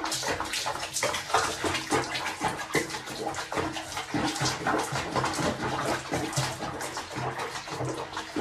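Bath water sloshing and splashing in a basin as a cat moves about in it, in a quick, irregular run of small splashes.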